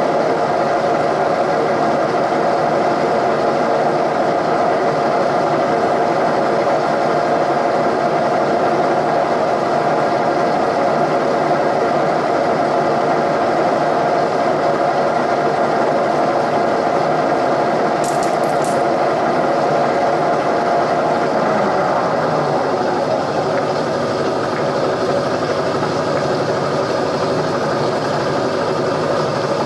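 Machine tool running steadily while a drill bit bores into a broken-off exhaust manifold bolt in a Ford 460 big-block cast iron cylinder head, a constant droning hum with a faint metallic rattle. It eases a little about three-quarters of the way through.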